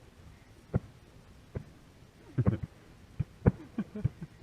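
Distant shotgun shots from other waterfowl hunters, coming at irregular intervals: single booms, then a quick cluster of several about halfway through, then a few more.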